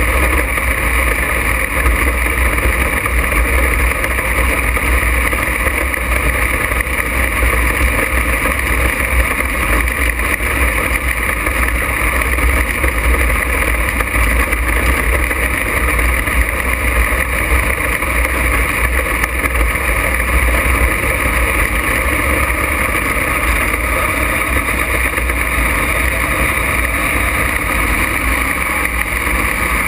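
Open-wheel dirt-track race car's engine running at speed on the track, heard from the onboard camera in the cockpit; the note stays steady and loud with a deep rumble underneath.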